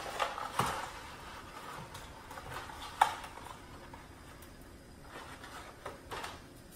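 Dry fettuccine snapping and being handled, a few sharp cracks and knocks with the loudest about three seconds in, over a faint steady sizzle from chicken frying in a skillet.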